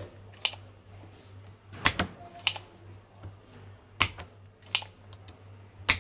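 Sharp, irregular clicks and taps, about seven of them, from tools at work desoldering an IC from a battery charger's circuit board, over a steady low mains hum.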